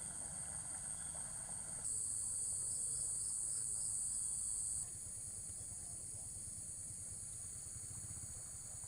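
Steady high-pitched insect chorus, crickets or cicadas, which grows louder about two seconds in, with a pulsing chirp, and drops back about three seconds later. A low steady rumble runs underneath.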